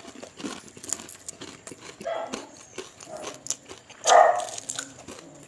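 Close-up eating sounds: scattered chewing clicks and mouth smacks, with a short loud voiced sound about four seconds in.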